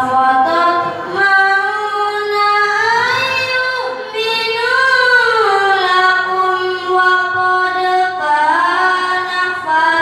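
A boy reciting the Quran in tartil style: one solo voice holding long, drawn-out melodic phrases that glide up and down, with a brief breath about four seconds in.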